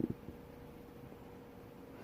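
The last trace of a hiccup fades right at the start, then quiet room tone with a faint steady hum. The person is in a long-running bout of intractable hiccups.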